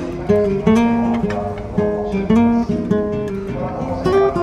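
Background music: an acoustic guitar playing, with chords or notes struck about twice a second.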